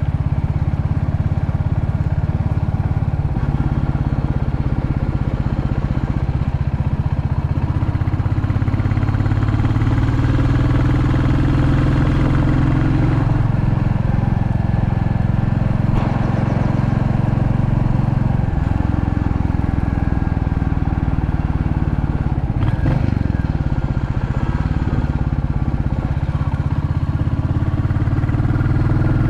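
Royal Enfield Classic 350's single-cylinder engine running as the motorcycle rides along, its note shifting in steps a few times through the stretch. About two-thirds of the way through the pitch drops and then climbs again.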